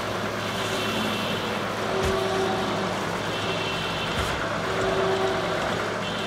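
Film sound effects of a powered armoured suit walking: a steady low mechanical hum with repeating servo whines, and a thud about every two seconds as each foot comes down.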